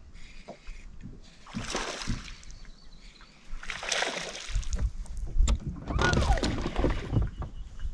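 Water splashing and sloshing, in several separate splashes, with low rumble under it.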